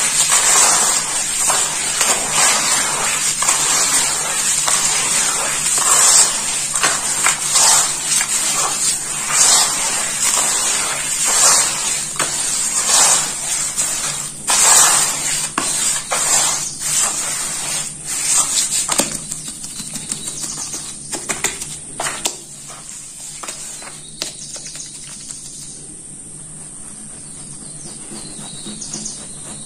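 Hands squeezing and kneading wet red dirt in water: gritty, squelching squishes coming in quick irregular bursts, then fewer and softer after about twenty seconds as the mud turns to a runny slurry. A steady high hiss runs underneath.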